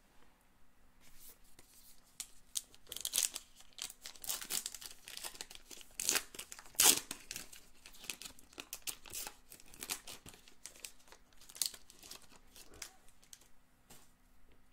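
Paper trading-card pack wrapper torn open and crinkled by hand in a run of ripping and rustling sounds, the loudest rip about seven seconds in. After that come softer rustles as the cards inside are slid and flipped.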